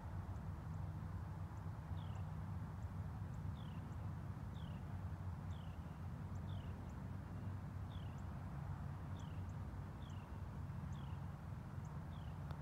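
A small bird calling over and over with short, high, falling chirps, about one a second, over a steady low hum.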